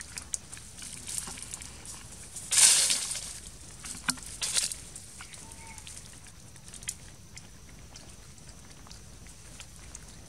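Dry fallen leaves crackling and rustling under a macaque's feet as it shifts about on the leaf litter. There is a louder crunch of leaves a few seconds in and a smaller one about two seconds later.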